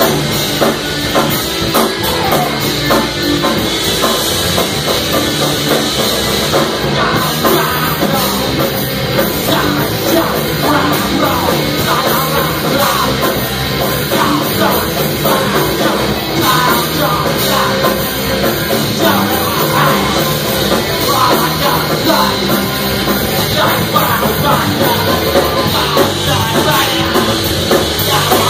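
Punk rock band playing live and loud: distorted electric guitars and a drum kit, with the singer's vocals over them, in one continuous stretch.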